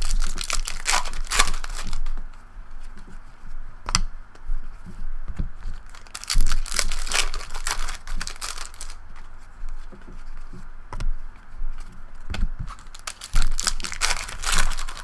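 Trading card pack wrapper being torn open and crinkled, with cards being handled, in irregular bursts.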